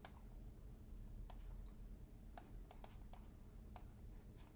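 Faint, scattered clicks from a computer mouse and keyboard at a desk, about seven short separate clicks at uneven intervals.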